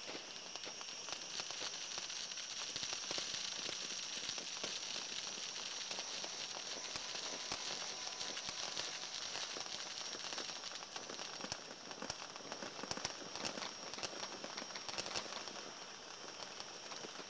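Distant fireworks popping and crackling in an irregular stream of sharp pops, over a steady high-pitched drone.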